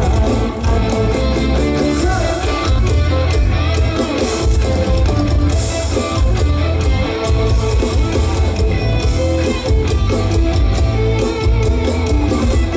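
Live band music played loud through stage speakers: an instrumental passage led by electric guitar over a steady beat.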